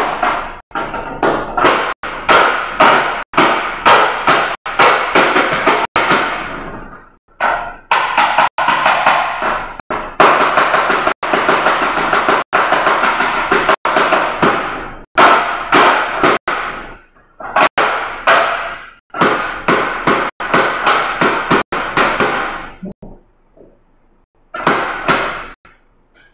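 A filled plastic chocolate bar mold tapped over and over against a stone countertop, about one and a half sharp taps a second with a ringing tail, broken by a few short pauses. This is the tapping that settles freshly poured tempered chocolate in the mold and knocks out air bubbles.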